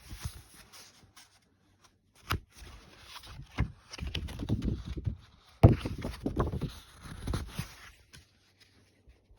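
Handling noise close to the microphone: scrapes, rustles and muffled bumps, with sharp knocks scattered through and the loudest knock about five and a half seconds in.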